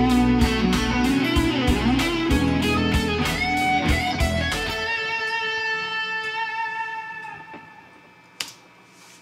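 Electric guitar solo over a backing track of drums and bass, which stops about five seconds in, leaving a held note that fades away. A single click near the end.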